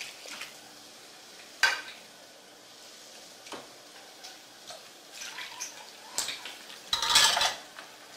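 Tamal masa being mixed in a bowl, with a few separate knocks and clinks of the bowl and utensils. Near the end comes a louder half-second rush of noise.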